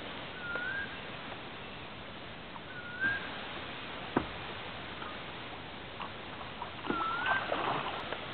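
Steady faint outdoor hiss with a bird's short rising whistle repeated three times, a single knock about four seconds in, and a stretch of splashing near the end as the hooked bull shark thrashes at the surface by the deck.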